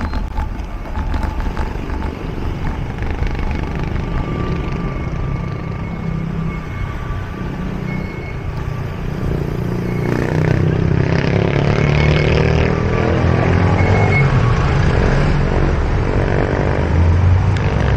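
Steady wind rumble and road noise on a bicycle-mounted action camera riding along a street. From about ten seconds in it grows louder, and the engine of a motorcycle tricycle just ahead joins in.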